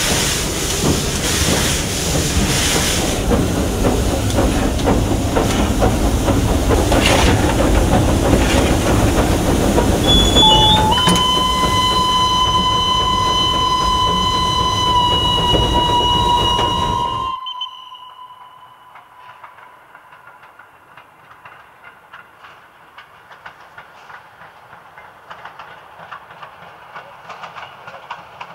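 Steam tram locomotive heard from its cab: loud, rough running noise, then about ten seconds in its steam whistle is blown for about six seconds, a short lower note going straight into a steady high tone. The sound then cuts off to the much quieter running of the tram heard from a distance, with faint clicking.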